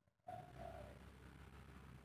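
Faint spotted dove coo: two soft, low notes shortly after the start, over a steady background hiss and hum.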